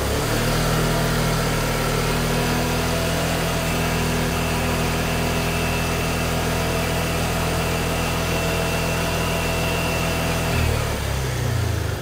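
Motorcycle engine held at raised revs for a high-RPM exhaust emission check, running steadily for about ten seconds, then dropping back to idle near the end as the throttle is released.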